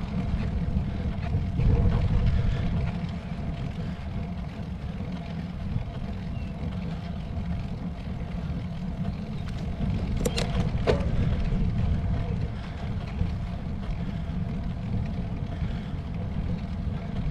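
Wind buffeting the microphone of a moving road bike: a steady low rumble, with two sharp clicks about ten seconds in.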